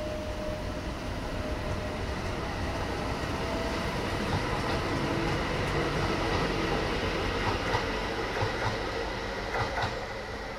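Tyne and Wear Metrocar electric train running past a station platform. Its rumble grows louder, then eases near the end, with a faint steady whine and a few sharp clicks in the last few seconds.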